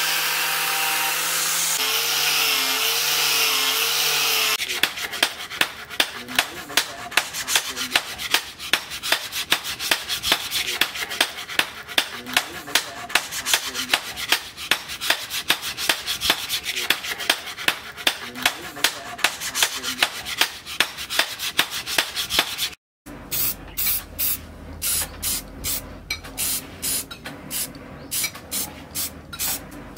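An angle grinder with a sanding pad runs against a steel axe blade for the first few seconds, then stops. After that a cloth is rubbed back and forth along the blade in quick, even strokes, about two or three a second, continuing after a brief break near the end.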